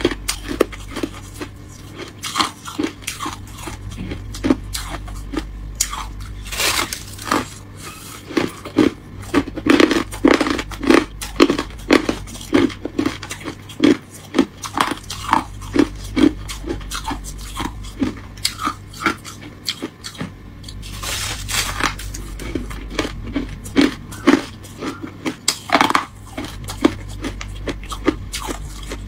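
Close-up crunching of freezer frost and ice being chewed: a steady run of crisp crunches, several a second, with a couple of short pauses.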